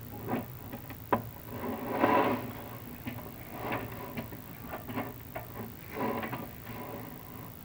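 Chimney inspection camera scraping and knocking against clay flue tiles as it is lowered down the flue: irregular scrapes, with a sharp knock about a second in.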